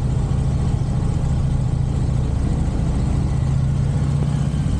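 Harley-Davidson V-twin motorcycle engine running steadily, with no revving.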